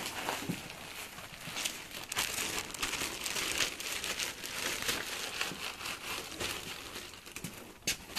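Crinkling and rustling from things being handled, with many small clicks and knocks, busiest about two to four seconds in and with one sharp click near the end.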